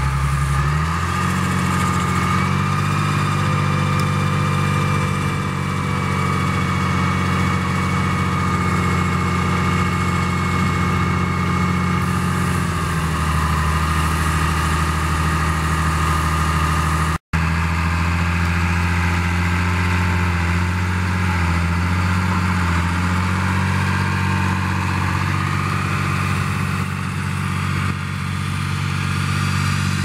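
John Deere 8000T-series rubber-tracked tractor's diesel engine running steadily under load while pulling a Mara land-levelling scraper, with a steady higher whine over the engine note and a brief break in the sound about halfway through.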